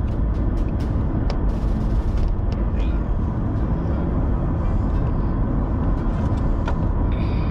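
Car cabin noise while driving: a steady low rumble of engine and road, with a few faint clicks scattered through it.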